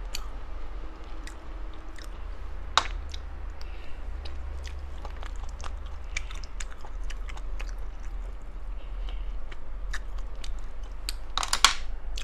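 A person chewing and biting seafood close to the microphone, with many small wet clicks. There is a sharp crunch about three seconds in and a louder burst of crunching near the end.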